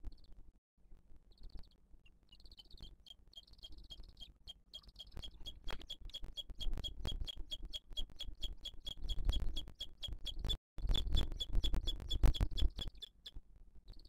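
Booted eagle chick peeping: a rapid series of short, thin high chirps at one pitch, about four a second, starting sparsely and becoming steady, over a low rumbling noise that is loudest near the end.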